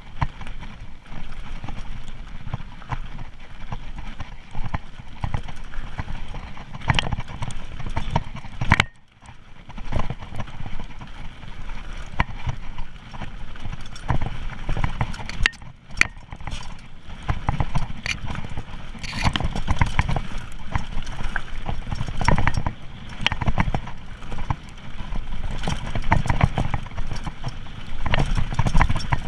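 Mountain bike descending a loose gravel trail: tyres crunching over stones and the bike clattering and rattling over the bumps, in a constant irregular run of knocks. It goes briefly quiet about nine seconds in, then the clatter resumes.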